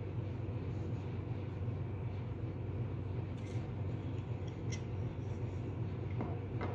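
Steady low hum throughout, with a few faint light taps about halfway through and near the end as small objects, a shell and a pebble, are set down on a wooden tabletop.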